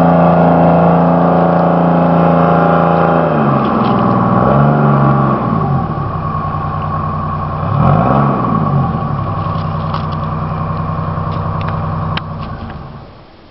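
Mountain Logger ML200 skidder engine running, revving up and back down twice, with a few light clanks, then fading out near the end.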